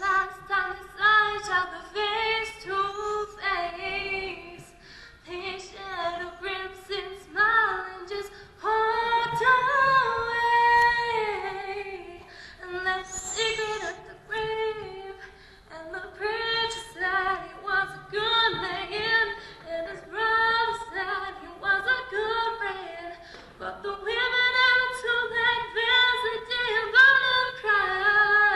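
A high female voice singing unaccompanied in phrases, with a longer held note about nine to twelve seconds in.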